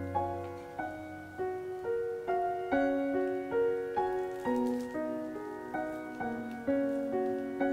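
Gentle solo piano background music, single notes and chords struck one after another at an unhurried pace, each fading away.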